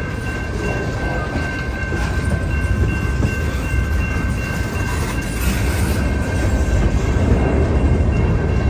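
Freight train of tank cars and hopper cars rolling past over a grade crossing: a steady, dense rumble of wheels on rail, with a thin, steady high tone above it. The rumble grows a little louder near the end.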